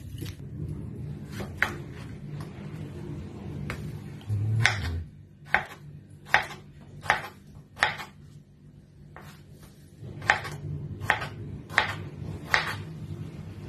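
Knife cutting against a cutting board in slow single strokes, about one a second, with a pause of a couple of seconds partway through.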